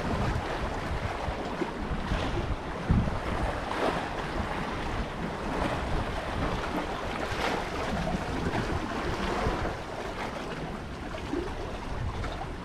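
Wind buffeting the microphone over the wash of sea waves, a steady rough rumble with gusts, one louder about three seconds in.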